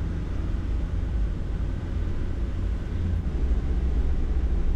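Light-truck camper driving along: a steady low rumble of engine and road noise.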